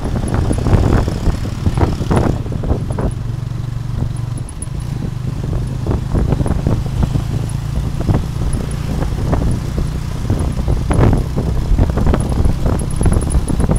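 Tuk-tuk under way: the towing motorcycle's small engine runs with a steady low hum, under repeated bursts of wind buffeting on the microphone.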